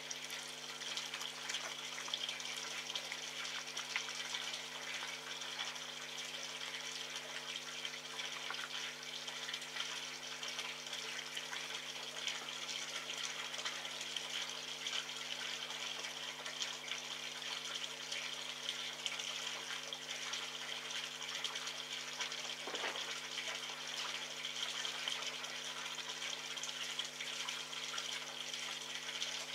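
Steady hiss like running water over a low, even electrical hum.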